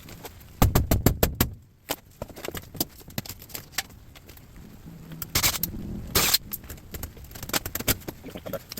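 Metal parts clattering and knocking as a washing machine is taken apart: a quick run of loud knocks about half a second in, then scattered clicks and two short scraping hisses around five to six seconds.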